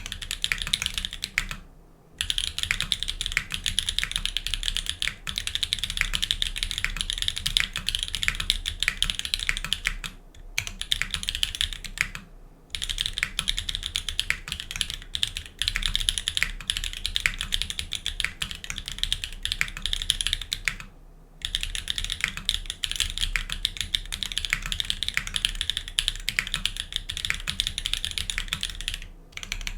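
Fast continuous typing on a GEONWORKS F1-8X mechanical keyboard with lubed Everglide Dark Jade linear switches and GMK keycaps: a dense run of keystroke clacks, broken by a few short pauses.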